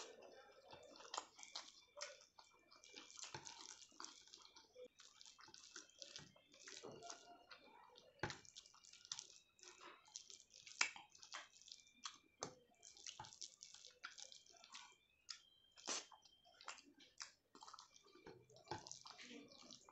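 Close-miked eating sounds: soft chewing with many short wet mouth clicks and smacks, several a second, at a low level.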